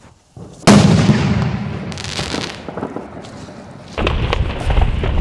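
Fireworks going off: one loud bang about 0.7 s in, fading with crackle over the next few seconds, then a denser run of sharp cracks over low rumble from about four seconds in.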